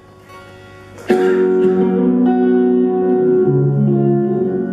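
Clean electric guitars playing slow sustained notes: faint ringing tones, then a chord struck about a second in that rings on while lower notes shift beneath it.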